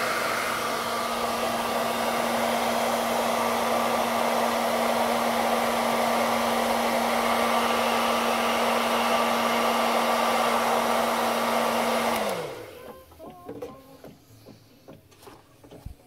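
Hair dryer running steadily, a rush of air over a low motor hum. It is switched off about twelve seconds in, the hum falling in pitch as the motor spins down, and a few faint knocks follow.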